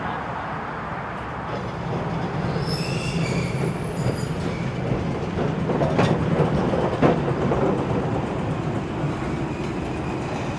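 Melbourne tram rolling past close by, a steady low rumble of steel wheels on rail. A brief high wheel squeal comes a few seconds in, and two sharp clacks over the rails about a second apart come past the middle.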